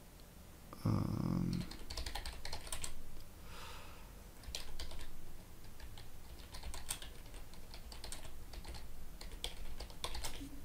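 Typing on a computer keyboard: a long run of quick key clicks, with a brief low sound about a second in.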